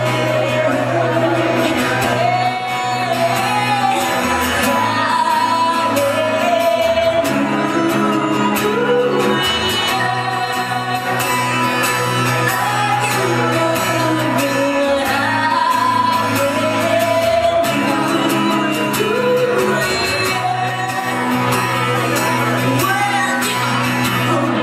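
Live singer-songwriter performance: a woman singing a melody while strumming a steel-string acoustic guitar, with sustained low notes underneath.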